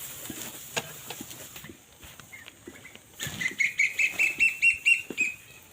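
A bird calling a fast run of about a dozen short, high notes, roughly six a second, rising slightly in pitch, over light rustling and knocks in the first half.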